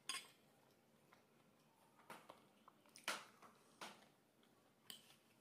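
Quiet eating sounds: a handful of short clicks and scrapes as a metal spoon scoops flattened-rice pulao off a ceramic plate. The loudest comes about three seconds in.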